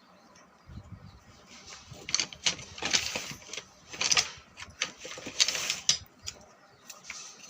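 Plastic packaging rustling and crinkling in irregular bursts as a parcel is handled and opened, with a few sharp clicks and crackles.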